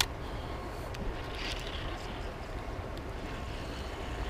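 Steady low rushing background noise of the outdoors, with a sharp click right at the start.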